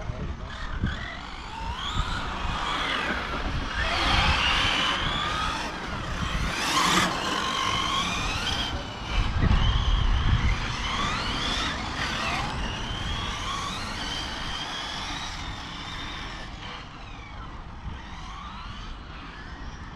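Brushless electric RC car motor whining as it runs laps, the pitch gliding up and down again and again as it accelerates and brakes, with a low rumble that swells around the middle.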